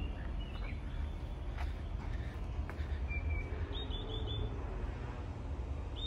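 Small birds chirping: short high notes, with a quick run of four chirps about two-thirds of the way through, over a low steady rumble.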